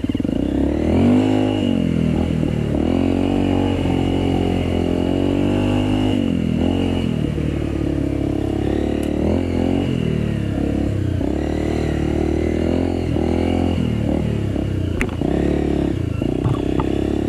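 Off-road trail motorcycle engine under way, revving up and easing off again and again as the throttle is worked over rough ground.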